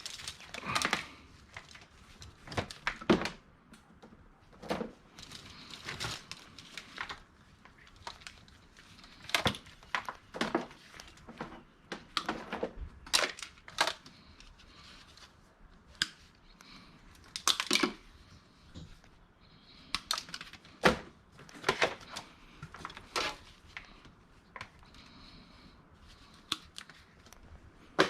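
Irregular clicks, knocks and crinkling as small plastic and metal e-waste is handled by hand and sorted.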